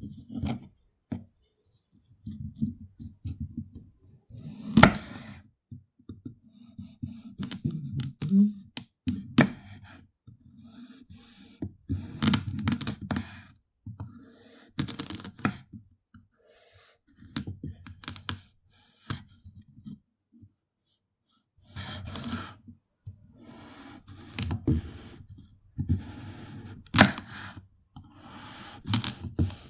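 Knife cutting through a raw carrot: crisp cracks and crunches with low thuds, in bursts of quick strokes separated by short pauses.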